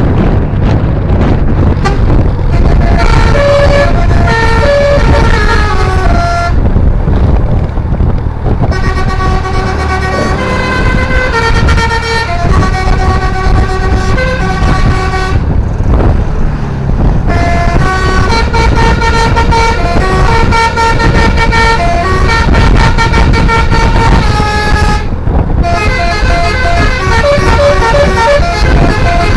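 A tour bus's telolet basuri horn, a multi-tone air horn, playing a melody in several phrases that step up and down in pitch, with three short breaks, over a steady low rumble.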